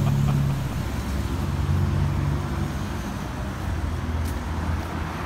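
Road traffic on a city street: cars driving past with a steady low rumble of engines and tyres.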